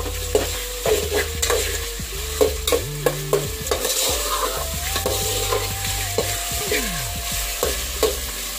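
Raw chicken pieces sizzling as they fry over a high flame in a metal pot, with a metal spoon scraping and clicking against the pot as they are stirred.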